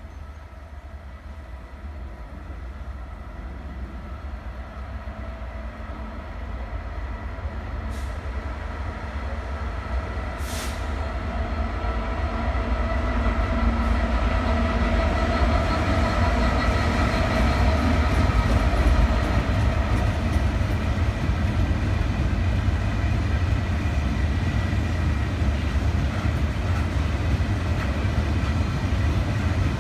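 Colas Class 66 diesel freight locomotive, with a two-stroke V12 engine, approaching and passing at speed. Its engine noise grows steadily louder to a peak about halfway through, then gives way to the steady rumble of loaded-axle wagons rolling by. There are two brief hisses about eight and ten seconds in.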